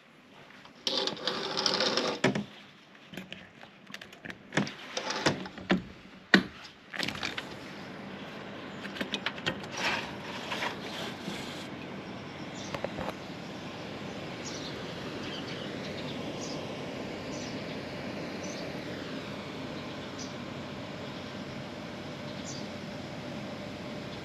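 Several seconds of irregular knocks, clicks and rustling of something being handled. Then a steady background hiss, with a bird giving short high chirps that slide downward, roughly one a second.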